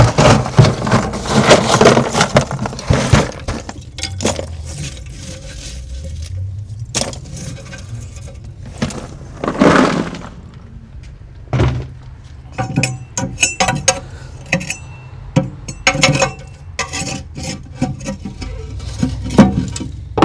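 Cast iron grill grate and metal grill parts clanking and scraping as they are handled, a long run of sharp knocks. Some of the hits ring on in the second half.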